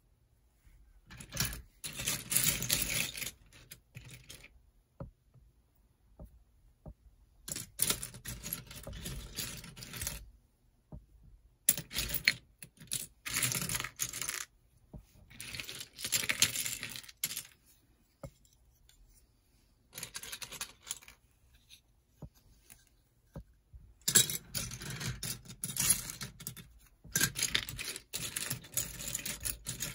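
LEGO pieces rattling and clattering in several bursts of a few seconds each, with quiet gaps between them, as LEGO sets or bags of parts are shaken and handled.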